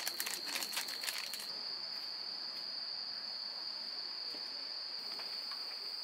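Insects trilling in one steady, unbroken high tone. A rapid run of crackly clicks sits over it for the first second and a half, then stops.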